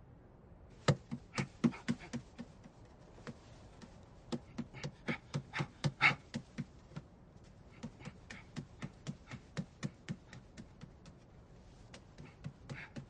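Quick footsteps pattering on a wooden floor, about four steps a second, in several runs with short pauses between, as someone runs back and forth along a temple corridor cleaning the floor.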